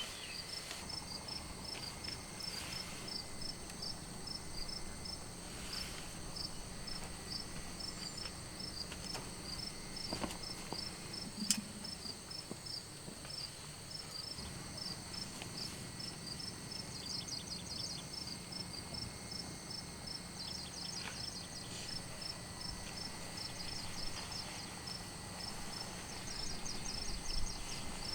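Crickets chirping at night in an even rhythm, about two to three chirps a second, over a steady high insect whine. Short rapid trills join in a few times in the second half, and there are a couple of small knocks around the middle.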